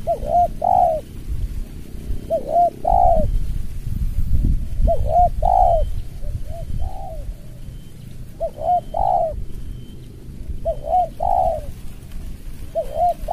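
Spotted dove cooing its song: six repeated phrases about two seconds apart, each two or three short notes running into a longer, drawn-out coo, over a low rumble.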